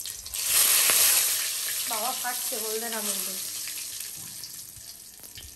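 Whole spices in hot mustard oil in a kadai flaring into a loud sizzle about half a second in, then slowly dying down. The spitting comes from water in the pan.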